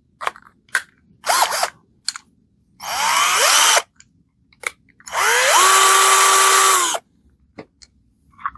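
Parkside PBSA 12 D4 12 V cordless drill running in three short bursts, the motor whine rising in pitch as it spins up each time; the last and longest, about two seconds, settles to a steady pitch and then stops abruptly. A few light clicks sound between the runs.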